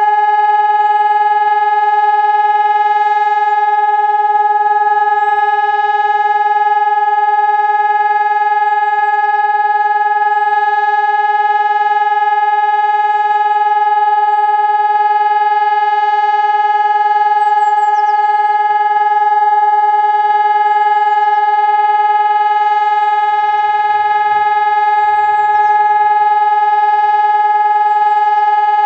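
Hörmann ECN 600 electronic civil-defence siren sounding a loud, steady tone that holds one pitch with many overtones. This is the continuous-tone pattern that German sirens use for the all-clear (Entwarnung) signal.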